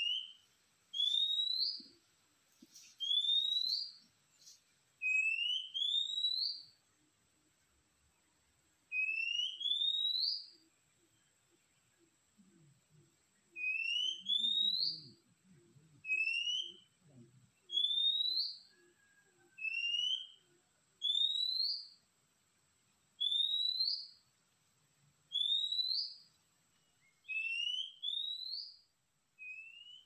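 Whistled bird call repeated at a steady pace: single or paired notes, each sliding upward in pitch over about half a second, coming every second or two.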